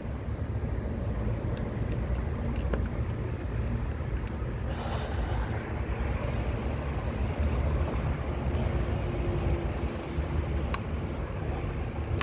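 Steady low background rumble, like distant traffic, with a few faint sharp clicks as ignition coil connectors are unplugged and the coils pulled from the engine.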